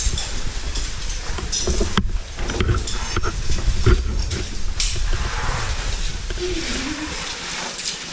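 A caver scrambling up and over rock: continuous rubbing and scraping of clothing and gear against the rock with scattered knocks and clicks. Heavy breathing runs through it, with a short grunt about six and a half seconds in.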